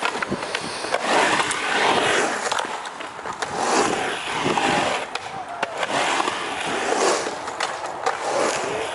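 Skateboard wheels rolling over the concrete bowl, the rumble swelling and fading as the rider pumps through the transitions, with several sharp clacks of the board and trucks hitting the concrete.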